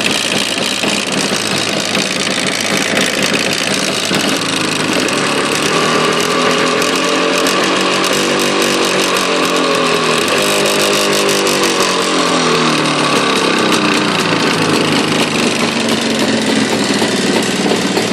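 Jawa motorcycle engine running, revved up slowly in the middle and let fall back to idle, with a knock in the engine.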